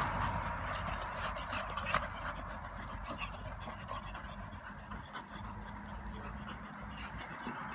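A bull terrier and a Staffordshire bull terrier panting and scuffling in rough play, with many short, irregular clicks and rustles.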